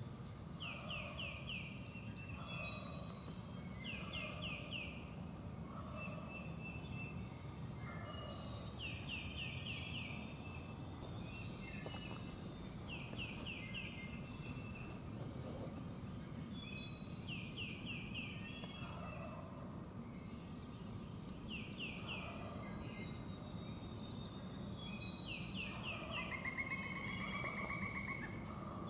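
Wild turkey gobbling in woodland, a rattling gobble near the end, while a songbird repeats a short song of four or five quick high notes about every four seconds.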